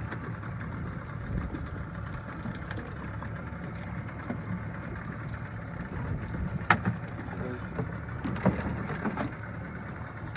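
Boat engine idling steadily, with a sharp knock about seven seconds in and another a couple of seconds later.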